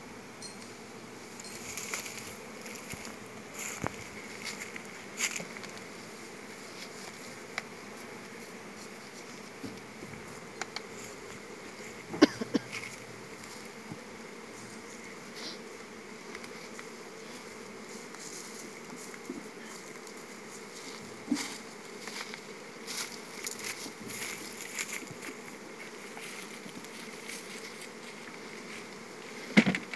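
Honeybees buzzing steadily around opened wooden hive boxes. Scattered knocks and scrapes of the hive boxes and frames being handled come through, with louder knocks about twelve seconds in, around twenty-one seconds in, and near the end.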